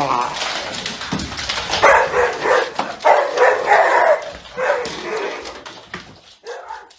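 A dog barking and whining in four drawn-out bursts about a second apart.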